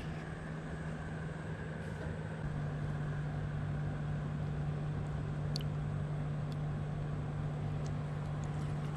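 A steady low motor hum over a constant background rumble, growing a little stronger a couple of seconds in, with a few faint clicks in the middle.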